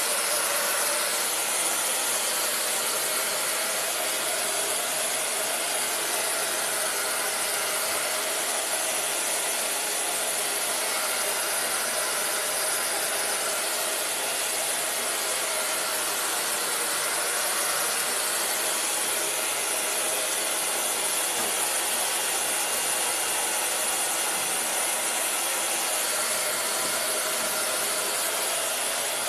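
Hand-held dryer blowing steadily, a constant airy hiss, drying freshly applied glitter glue and paint so they set quickly.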